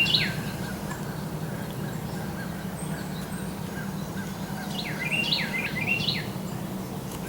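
Carolina wren singing: runs of repeated down-slurred phrases, once right at the start and again about five seconds in, over a steady low hum.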